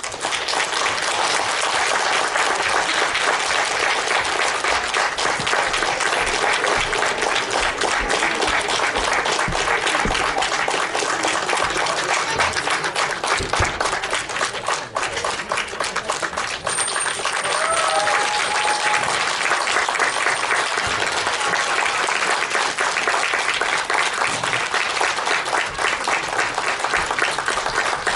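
Audience applauding steadily, many hands clapping at once with no break.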